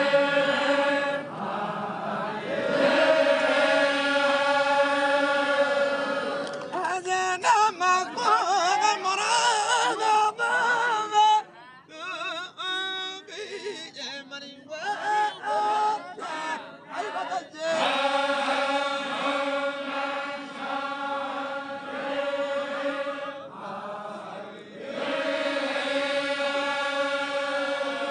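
Voices chanting a Zikri chogan devotional song in long held notes. In the middle the chant turns quicker and more broken, with short gaps, before the long held notes return.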